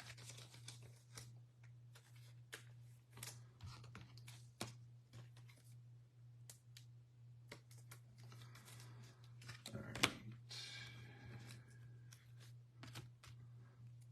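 Faint, scattered clicks of typing on a computer keyboard, with one sharper click about ten seconds in, over a steady low hum.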